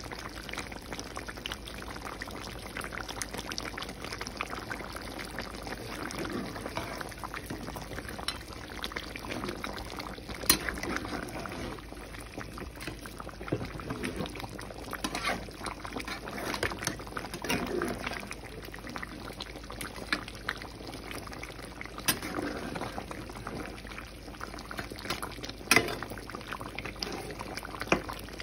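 Chicken curry bubbling at a simmer in a nonstick pan on a gas stove, stirred with a spatula, which knocks against the pan in a few sharp clicks.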